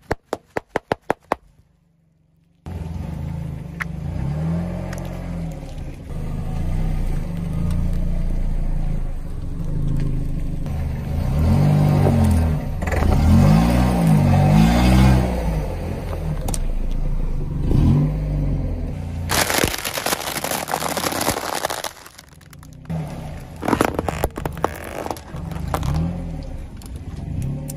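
Car engine running and revving as the car rolls over and crushes objects, with scraping and crackling. The engine pitch rises and falls repeatedly, a loud burst of noise comes about two-thirds of the way in, and several sharp cracks follow near the end. A quick run of clicks comes at the very start.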